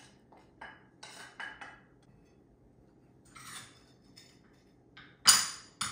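Metal utensil and wooden spoon clinking and scraping against a cracked ceramic plate: a few light clinks in the first two seconds, a scrape a little past three seconds, then a loud clatter of dishware just past five seconds, followed by another.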